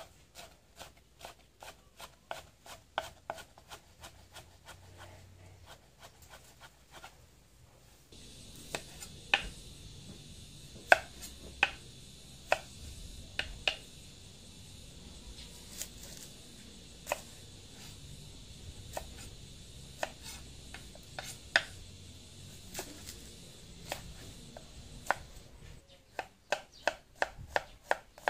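Kitchen knife slicing green mango and red onion on a wooden cutting board: even knocks of the blade on the board, about three a second, turning to slower, scattered cuts after about eight seconds and quickening again near the end.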